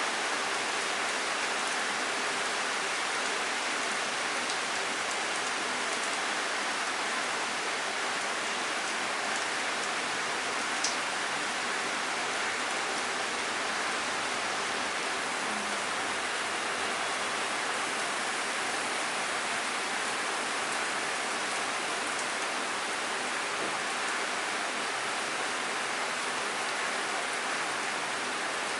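Steady rain falling, an even hiss of drops without letup, with a single sharp click about eleven seconds in.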